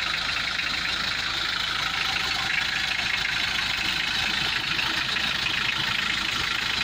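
Mitsubishi L200's 4D56 four-cylinder turbodiesel idling with a steady diesel clatter.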